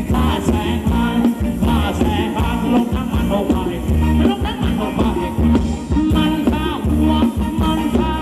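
Live band playing up-tempo Thai ramwong dance music over a PA system, with a heavy, regular bass beat and a melody line above it.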